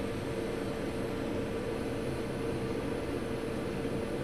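Steady fan hiss of electronics repair bench equipment during capacitor soldering, with a constant mid-pitched hum.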